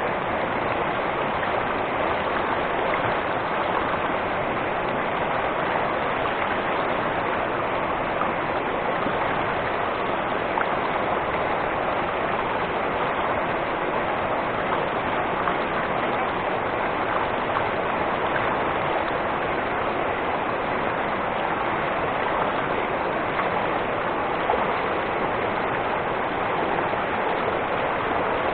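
Rushing water of a mountain stream or waterfall, a steady even rush that doesn't let up.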